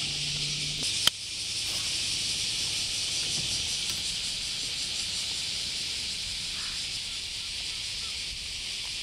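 Steady, even high-pitched drone of a summer cicada chorus, with a single sharp click about a second in.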